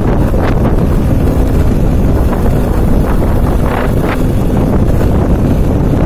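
Steady wind buffeting the microphone on a motorcycle coasting downhill with its engine switched off.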